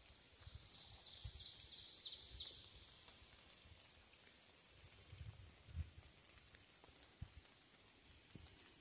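A songbird singing faint, high, short notes that each slide downward, a quick run of them in the first couple of seconds and then spaced pairs, over soft footsteps on a woodland trail.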